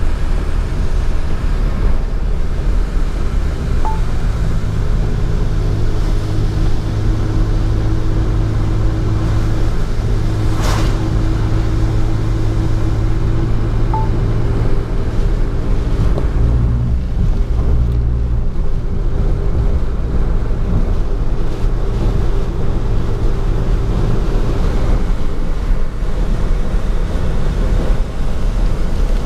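Car cabin noise while driving on a rain-soaked highway: a steady low rumble of engine and tyres under a hiss of rain and road spray, heard through the car's interior.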